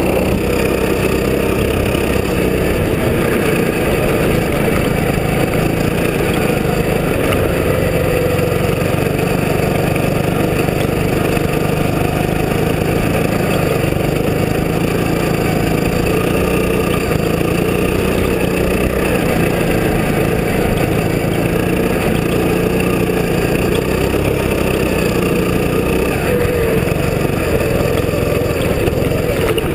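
Go-kart engine running hard, its pitch rising and falling as it accelerates and eases off through the corners.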